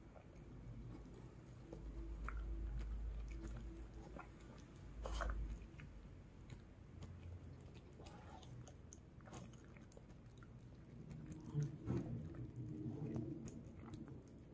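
A dog eating soft rice and beef in soup from a bowl: faint, irregular chewing and smacking with small clicks, busier near the end. A low rumble comes in from about two to five seconds in.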